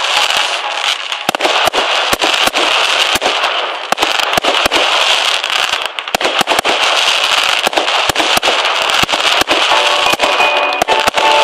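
A fireworks cake firing shot after shot, each shot breaking into crackling stars: a dense stream of sharp pops and crackle over a continuous fizzing hiss, with a few louder bangs.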